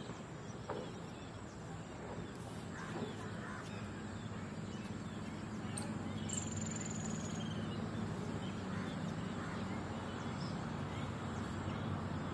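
Garden ambience: birds calling now and then, including a high rapid trill about halfway through, over a steady rumble of road traffic that grows a little louder in the second half.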